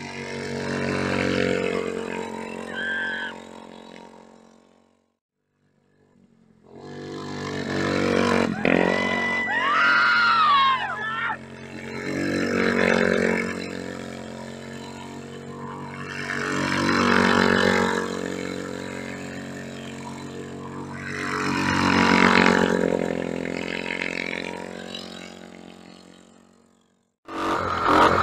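Student formula car's 500 cc Royal Enfield single-cylinder engine revving up and falling back in repeated swells as the car slides around on dirt. The sound cuts out for about two seconds around five seconds in and again briefly near the end.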